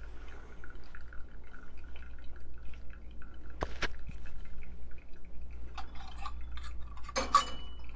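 Brewed coffee dripping from pour-over paper filters into glass servers as the coffee beds drain. A few light clicks sound, one about four seconds in and one near the end.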